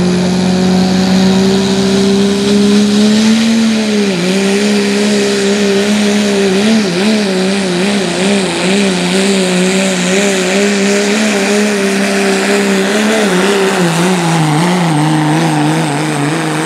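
Turbocharged diesel pickup engine running at full throttle under heavy load while pulling a weight sled. The pitch holds steady for the first few seconds, drops about four seconds in, then wavers up and down through the pull and sags lower near the end.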